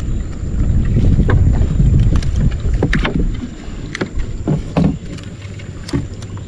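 Wooden canoe being paddled: irregular knocks and splashes of the paddle against the hull and water, over a low rumble of wind on the microphone that eases after about three seconds.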